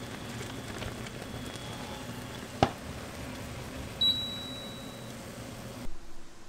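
Pot boiling over on an electric cooktop, bubbling steadily over a low hum. A sharp click about two and a half seconds in, and a short high beep from the cooktop controls about four seconds in, after which the boil-over dies down.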